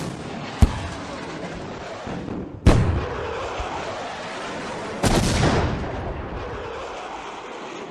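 Booms: a short sharp crack less than a second in, then two heavy booms about two and a half seconds apart. Each boom hits suddenly and rolls off into a long rumble, and the first of the two is the loudest.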